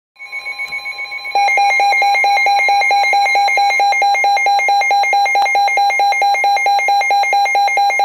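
Weather radio receiver sounding its warning alarm: rapid, evenly pulsed electronic beeps, about six a second, that jump louder about a second in. A steady high tone runs underneath, the broadcast's warning alarm tone. Together they signal an incoming severe thunderstorm warning.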